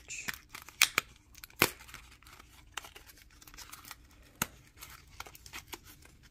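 Small cardboard box being opened by hand: paper scraping and rustling as the sleeve is worked open, with a few sharp snaps.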